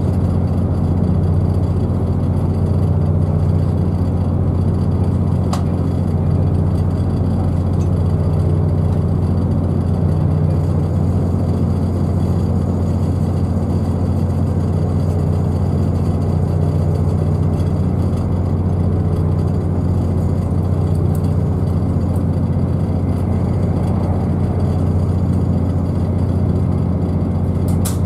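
The interior of a moving Class 221 Super Voyager diesel-electric train. The steady low drone of its underfloor diesel engine runs under the rumble of the wheels on the track. A couple of faint clicks come about five seconds in and near the end.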